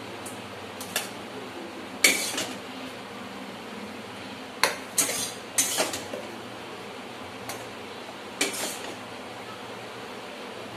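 Steel ladle clinking and scraping against a steel kadai and steel plates as chickpea curry is served out, in separate sharp clinks a second or two apart, over a steady low hum.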